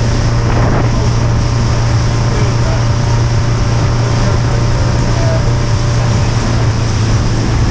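Small motorboat's engine running steadily under way, a constant low drone, with wind buffeting the microphone and rushing water.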